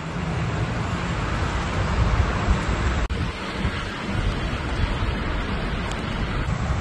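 Storm wind blowing hard and buffeting the microphone, a steady rush with an uneven low rumble, broken briefly about three seconds in.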